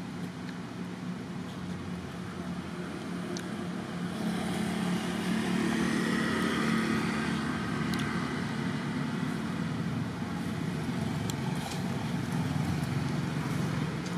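A motor vehicle's engine running, growing louder from about four seconds in as it passes, over steady outdoor background noise, with a few faint clicks.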